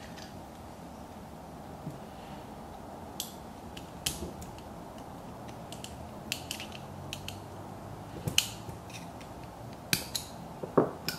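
Scattered small metal clicks and taps as the pins and springs of a LOKKA locker are worked into a differential carrier by hand, a few sharper clicks about four, eight and a half and ten seconds in.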